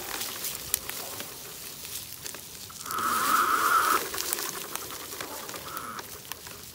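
Electric motors of a Bajaboard GX4 off-road skateboard whining under throttle, loudest for about a second around three seconds in and briefly again near the end. Dry leaves and twigs crackle under its tyres throughout.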